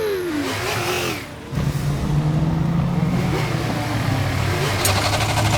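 Cartoon vehicle engines revving and running in a chase, a steady low drone. About five seconds in a fast, even rattle breaks in, the sound of the engine's belt breaking.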